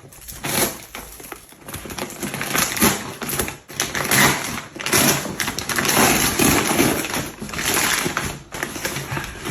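Packaging being torn open and handled: dense crinkling and rustling with many quick crackles as the package is unwrapped.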